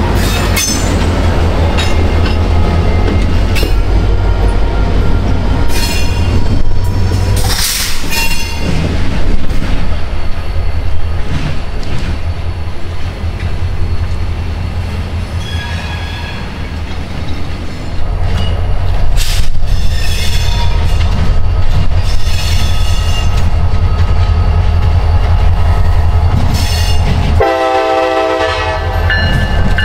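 A train passing close by with a heavy, steady rumble, and brief high-pitched wheel squeals now and then. A horn blast of about a second and a half sounds near the end.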